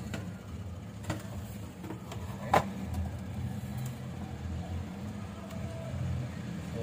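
Steady low hum with a couple of clicks; the sharpest click comes about two and a half seconds in.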